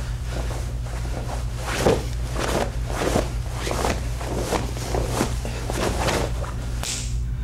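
Short swishes of a heavy cotton karate uniform and shuffling feet on carpet as a kata is performed, an irregular string of one or two strokes a second with the sharpest about two seconds in. A steady low electrical hum runs underneath.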